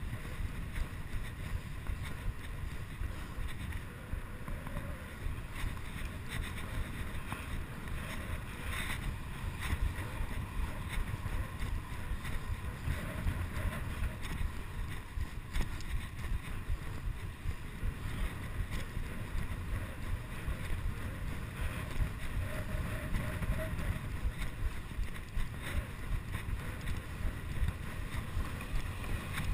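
Wind buffeting the microphone of a chest-mounted GoPro on a bicycle ridden fast: a steady rush with a heavy, fluttering low rumble.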